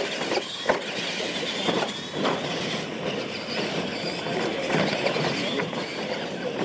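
Electric R/C monster trucks racing over dirt: a steady whine of motors and gears with rattling drivetrain, and a few sharp knocks as the trucks bump over the ramps.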